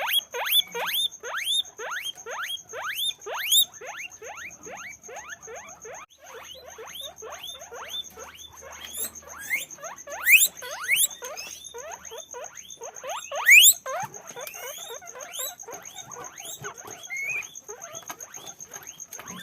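Guinea pigs wheeking: a rapid, unbroken stream of short rising squeaks, several a second, with two louder, shriller ones in the middle.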